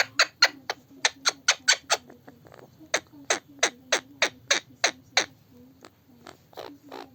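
Parrot making a rapid series of sharp clicking sounds, about three a second and uneven in loudness, growing fainter and sparser after about five seconds.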